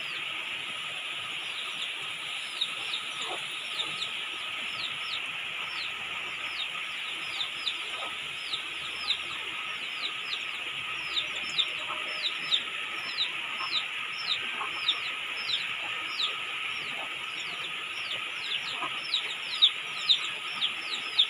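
Steady hiss of rain, with a bird's short, high chirps falling in pitch repeated about two or three times a second throughout.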